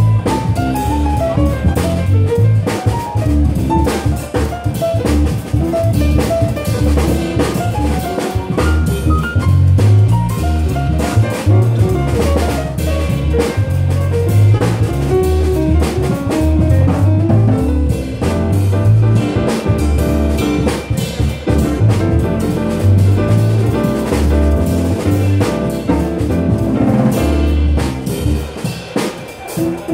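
Live jazz played on a fingerstyle electric bass and a drum kit, the bass carrying a line of separate plucked low notes over steady drumming.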